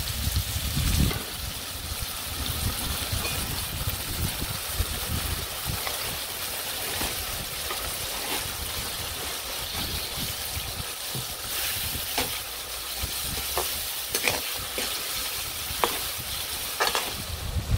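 Onions and curry masala sizzling steadily in hot oil in a metal wok, the masala being fried down for a curry. A spatula stirs and scrapes against the pan, giving occasional short clicks.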